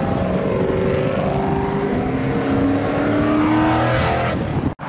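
Car engine running under acceleration, its note dipping and then climbing steadily, with road noise, cut off abruptly near the end.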